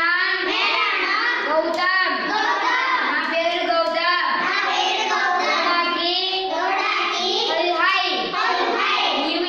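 A group of young children chanting Punjabi phrases together in a sing-song chorus. The voices run on without a break.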